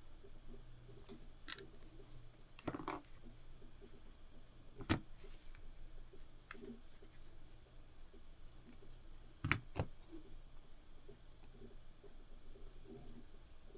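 A few scattered small clicks and taps of handling, a close pair of them near the end, over a faint steady hum.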